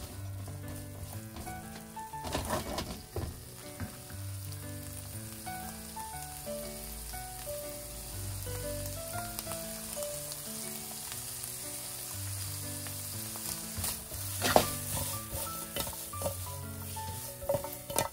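Bamboo shoots sizzling as they are stir-fried in a sauce in a nonstick frying pan. A spatula scrapes and tosses them a few times, most loudly about two and a half seconds in, at about fourteen seconds and at the very end. Background music plays underneath.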